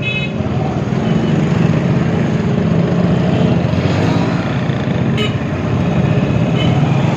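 Motorcycle engine running at a steady pace while riding on the road, with wind and road noise, and a brief sharp sound about five seconds in.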